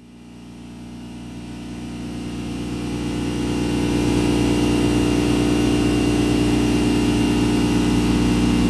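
Intro sound design for a logo animation: a steady low electronic drone of several held tones, fading in over the first four seconds and then holding at full level.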